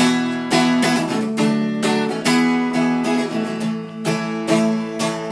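Acoustic guitar strummed in a steady rhythm, chords ringing between the strokes, with no singing: an instrumental break between verses.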